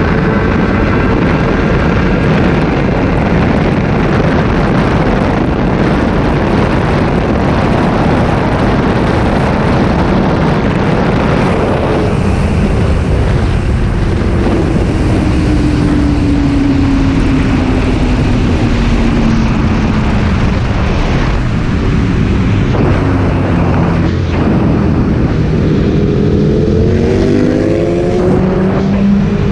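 Onboard a BMW S1000RR inline-four sport bike at high speed: heavy wind rush over the engine note. The engine's pitch falls slowly through the middle and climbs in several short rising runs near the end as the bike accelerates again.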